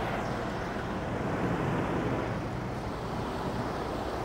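Semi truck under way: a steady low engine drone under a wash of road and wind noise.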